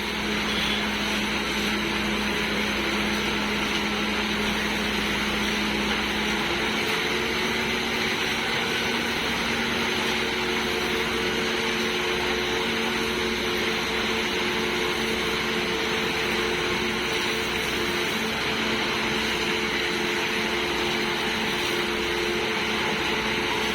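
Engine of construction machinery running steadily with a constant hum; about seven seconds in its note changes, the low rumble falling away as a higher tone comes in.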